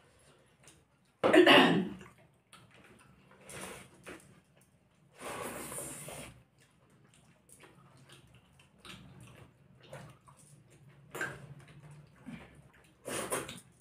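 Close-up eating sounds of rice and curry being mixed and eaten by hand: scattered wet squishes and small clinks. A loud short burst comes about a second and a half in, and a longer, noisier stretch comes around the middle.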